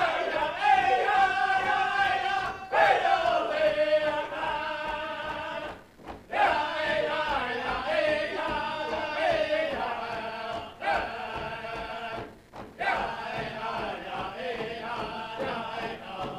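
Powwow drum group of men singing together, their phrases starting high and falling in pitch, with short breaks between phrases.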